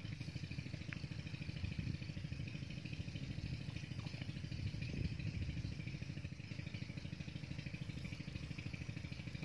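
A small engine running steadily at one speed: a rapid, even, low chugging with no change in pace.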